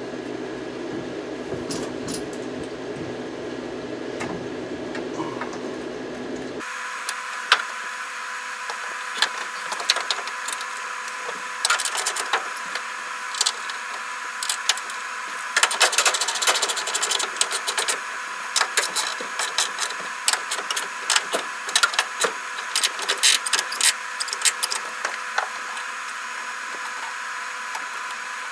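Metallic clicks and rattles of hands fitting the brake cable end into the under-dash parking brake handle of a 1963 Chevy C10, with the clicks coming thickest in the second half. A steady hum runs under the first six seconds or so and cuts off abruptly.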